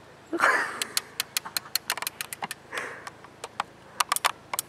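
A person's sharp sniffing breath, with a second one near the middle, amid a run of short, irregular sharp clicks.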